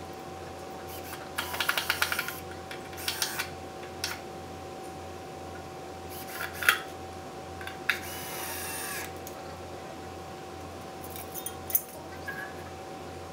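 Handling of a cordless drill/driver against wooden framing studs: scattered clicks and knocks, with a quick run of rapid clicks about a second and a half in and a sharper knock near the middle. A steady faint hum lies underneath.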